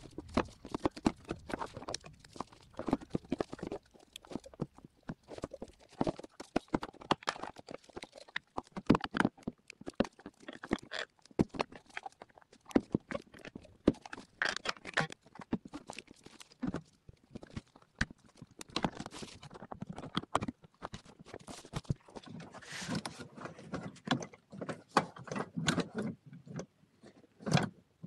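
Irregular clicks, knocks and light rattles of gloved hands working a repaired ABS/ESP hydraulic unit back into place in a car's engine bay, with metal and plastic parts tapping together.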